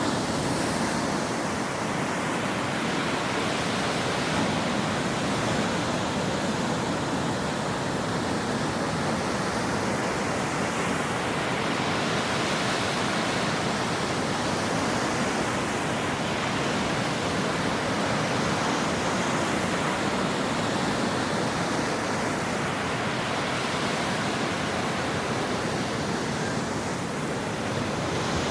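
Ocean waves breaking on a shore: a steady wash of surf noise, its hiss swelling and easing every few seconds as waves come in.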